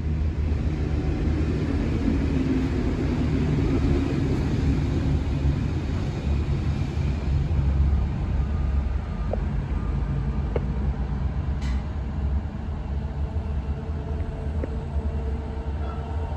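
A train going past with a steady low rumble.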